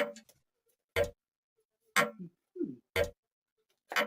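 Grandfather clock ticking steadily, one tick a second.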